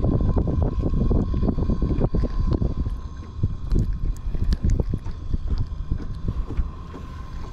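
Wind buffeting the microphone, with short clicks and rustles of hands handling a caught mangrove snapper and working the hook free; the rumble eases after about three seconds.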